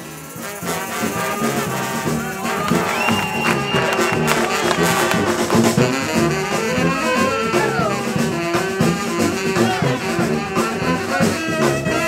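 Street brass band playing: saxophones and brass horns over a low brass bass line and drums. One horn slides down in pitch about seven and a half seconds in.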